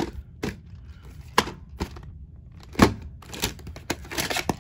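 White plastic VHS clamshell case being handled and opened: a string of sharp plastic clicks and knocks, the loudest about three seconds in.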